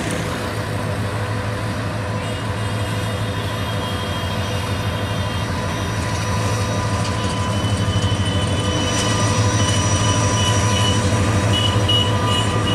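Bangladesh Railway diesel locomotive passing close underneath at the head of a passenger train, its engine running with a steady low throb that grows louder about two thirds of the way in, with thin high squeals coming and going.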